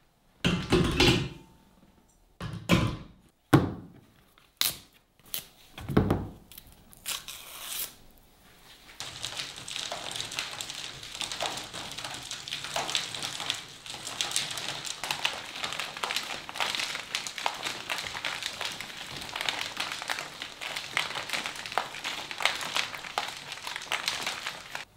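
Metal clunks and knocks as a large stainless-steel drum is set into its crank stand. After that comes a steady rubbing as a cloth is wiped over the drum's surface while it turns.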